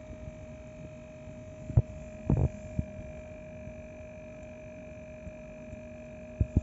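A steady mechanical hum, broken by a few short knocks, one near two seconds in, two more shortly after, and one near the end.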